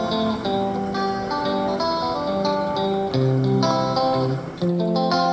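Background music: a guitar tune with plucked notes following one another in a steady flow.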